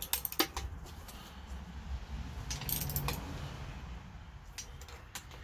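Metallic clicks and clinks of a torque wrench and socket working the intake manifold bolts on a marine 350 V8: a few sharp clicks at the start, a quick run of clicks around the middle, and a couple more near the end. The bolts are being brought up to torque in stages, starting at 20.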